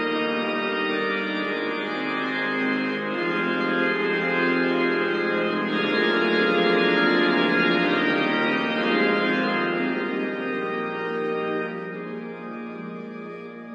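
Organ music playing held chords, fading out near the end.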